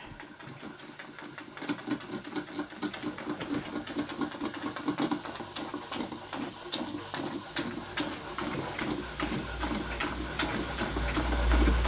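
Märklin 4106 model steam engine running fast under its own steam: a quick, even beat of exhaust puffs over a steady hiss, with scattered spitting clicks as the very wet exhaust throws out a lot of water, which the owner puts down to too much water in the boiler. A low rumble builds over the last few seconds.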